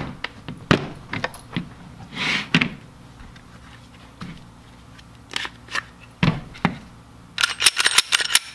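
Plastic Glock pistol case being handled: sharp snaps of its latches, a short rub as the lid opens, and scattered clacks as the pistol is lifted from the foam. Near the end, a quick run of clicks and clacks as the Glock 43X is worked by hand to check that it is clear.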